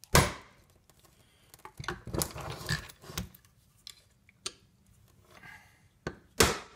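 Hammer driving an old chisel into the seam of a condenser fan motor's case to tap the end bell loose. There is a sharp metallic strike at the start, a run of lighter knocks and scraping as the motor is worked about two to three seconds in, and another sharp strike near the end.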